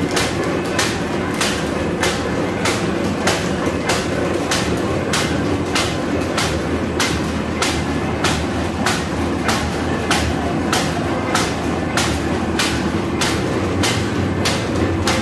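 Paper bag making machine running, a steady mechanical drone with an even clack a little under twice a second.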